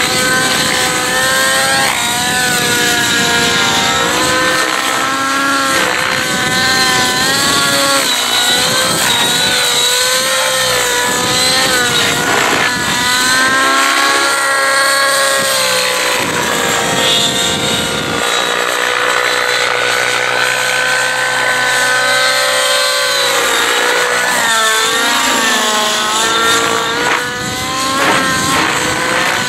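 Nitro-powered Rave ENV 90 RC helicopter in flight, its glow engine and rotor running at high speed. The engine's pitch rises and falls again and again as the helicopter is thrown through aerobatic manoeuvres.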